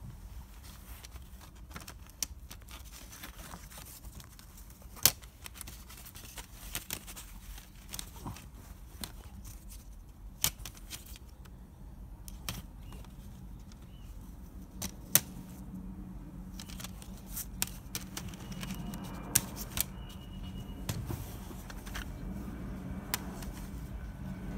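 Plastic CD jewel cases being handled and moved about: scattered clicks and clacks with a few sharper knocks, over a low steady hum.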